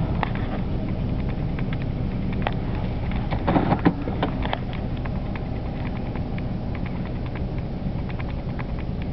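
Freight train cars rolling past: a steady low rumble with scattered clicks and clanks from wheels on the rails, and a short run of louder clanks about three and a half seconds in.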